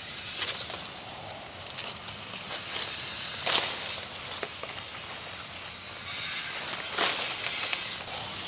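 Guava tree leaves and branches rustling as fruit is picked by hand, with short cracks and snaps, two of them louder, once before halfway and again near the end.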